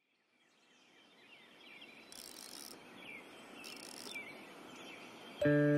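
Faint outdoor ambience with birds chirping, fading in from silence, crossed by two short high hisses. Soft chiming music notes begin near the end.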